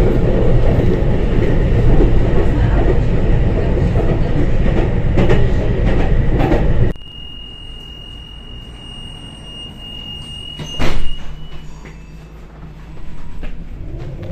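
Tram running at speed over ballasted track: a loud steady rumble of wheels on rail with rattling clicks. It cuts off suddenly about seven seconds in to the much quieter interior of the tram standing at a stop with its door open, where a steady high beep sounds and a single loud bang comes near the end of it.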